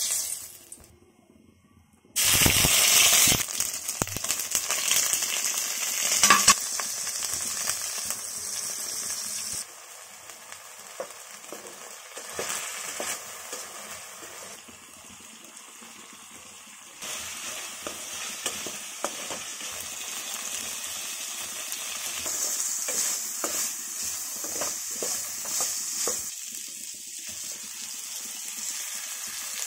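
Mutton pieces sizzling in hot oil in a pot. The sizzle jumps up sharply about two seconds in, eases off later, then picks up again. Short knocks and scrapes from stirring run through the later part.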